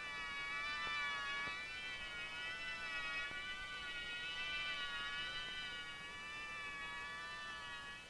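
Soundtrack music: a sustained high chord of several tones held together, wavering slightly in pitch.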